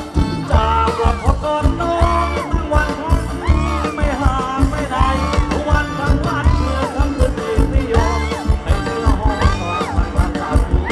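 A live band playing Thai ramwong dance music: a singer's melody over a steady drum beat and bass.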